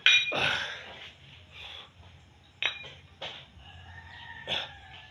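A few sharp metallic clinks and knocks, the loudest at the very start and the others spaced irregularly, from the iron plates of a pair of plate-loaded dumbbells being gripped and curled.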